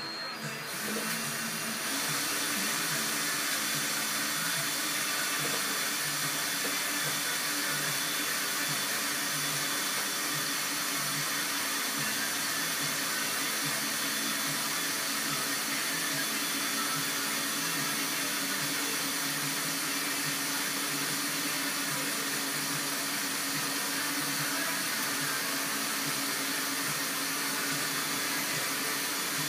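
Cordless drill running steadily, spinning a steel rod mandrel as steel wire is wound onto it into a tight coil for chainmail rings. The drill comes up to speed in the first second or two and then runs without a break.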